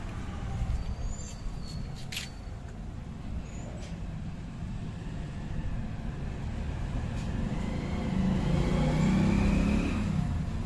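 A motor vehicle's low engine rumble, growing louder with a slowly rising pitch near the end as it comes close.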